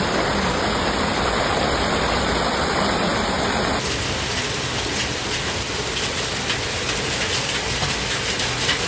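Heavy rain from a thunderstorm, a steady rushing hiss that changes abruptly about four seconds in.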